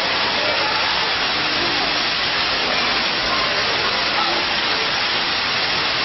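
Digital water curtain fountain: many thin streams falling from a row of nozzles and splashing into the pool below, a steady, even rush of water.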